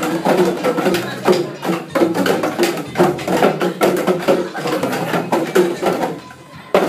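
Small Korean hand drums (sogo) struck with sticks by a group of dancing children: many scattered strikes over music. The drumming thins out about six seconds in, with one last strike near the end.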